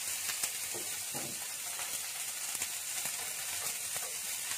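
Shrimp sizzling steadily in hot cooking oil in a frying pan, stirred and turned with chopsticks, with a few light taps of the chopsticks against the pan.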